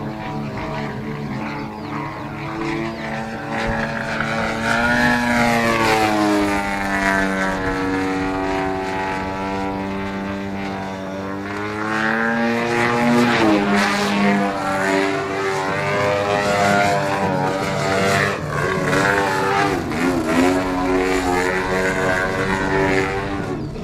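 ZDZ 97cc two-stroke petrol engine with a tuned pipe, driving the propeller of a large-scale Extra 330LX aerobatic model plane in flight. Its pitch falls, rises and falls again as the throttle changes through the manoeuvres.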